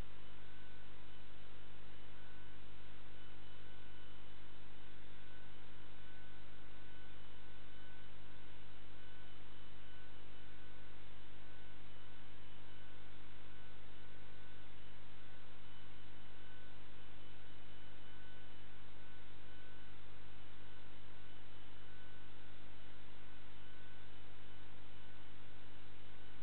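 Steady electrical mains hum over a constant hiss, with a faint high tone that flickers on and off; no clicks or knocks.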